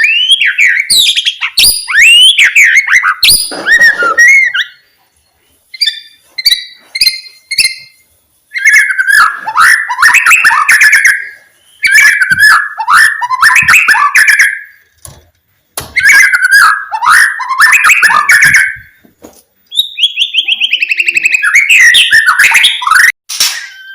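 White-rumped shama (murai batu) singing a loud, varied song: gliding whistles and rapid trills delivered in repeated bursts of about three seconds, with short pauses between them.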